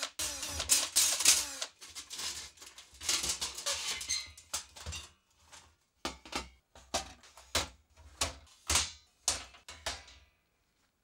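A cordless drill whirring against a steel PC case, then a series of separate knocks and clatters as the dismantled sheet-metal and plastic case panels are set down on a steel workbench.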